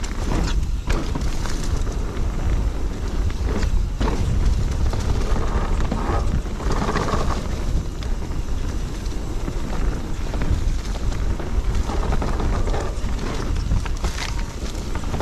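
Wind rumbling on the microphone and tyre noise from an electric mountain bike ridden fast along a trail, with scattered knocks and rattles from the bike over the rough ground.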